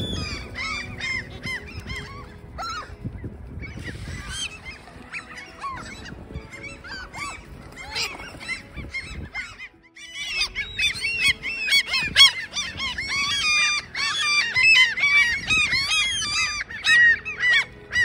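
A flock of gulls calling, many short rising-and-falling cries overlapping. The calls are scattered at first, drop away for a moment near the middle, then crowd together and grow louder through the second half.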